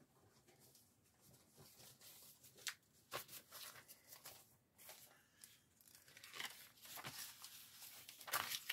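Soft paper rustling and crinkling as a store advertising flyer is handled and unfolded, with a few light ticks. It gets busier and louder in the last few seconds.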